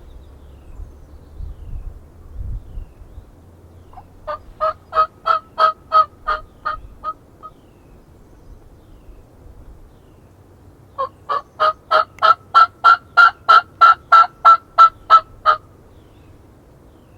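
Hen turkey yelps run on a Woodhaven turkey call: a run of about a dozen evenly spaced yelps, a pause of a few seconds, then a longer, louder run of about eighteen.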